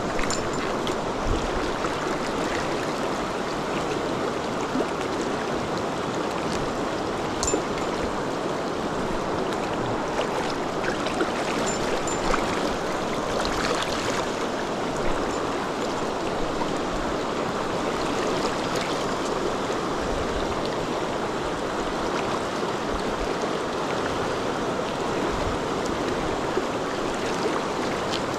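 A river riffle: shallow rapids rushing steadily, with a few faint, short clicks now and then.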